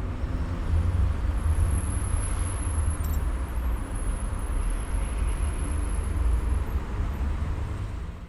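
A steady low rumble of outdoor noise, easing off near the end, with a faint high whine over it.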